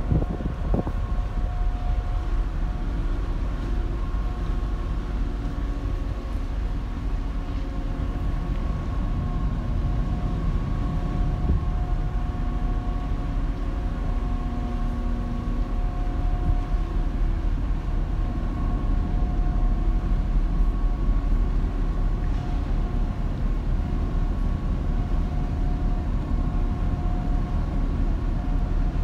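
The berthed 14,125-ton ferry Lavender's onboard machinery running steadily: a low rumble under a constant hum of several steady tones.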